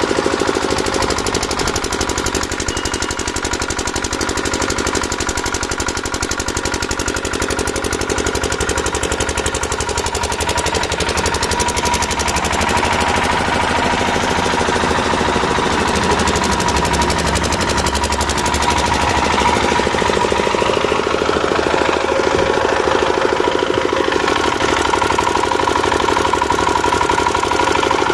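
Power hammer drill running continuously on a construction site, a rapid, even hammering with a steady whine over it.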